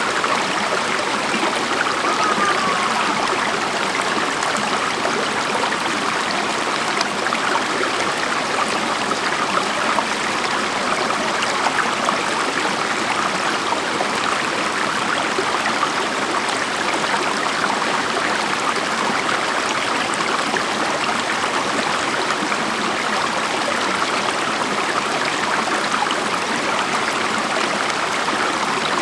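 Steady, even rush of flowing water from Bushkill Creek and its falls.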